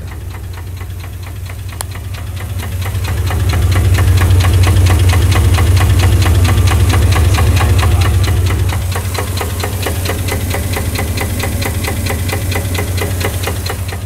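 1991 GMC S-15 Jimmy's 4.3 L V6 idling with a rapid, regular knock, loudest for a stretch in the middle. The owner cannot tell whether it is rod knock, lifter knock or both.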